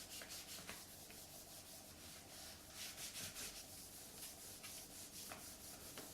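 Faint rubbing of a small microfiber cloth wiping a laptop screen dampened with water, a soft repeated swish with each stroke.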